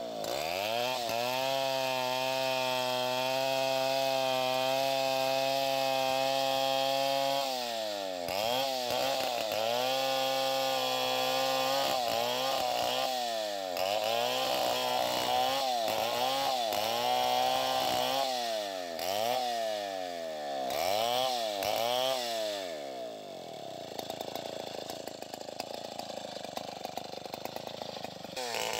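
Stihl two-stroke chainsaw cutting into a squared anonang log. The engine holds a steady high speed for about seven seconds, then rises and falls in pitch again and again as the throttle is worked in the cut. It drops to a rough idle for the last few seconds and revs up again at the very end.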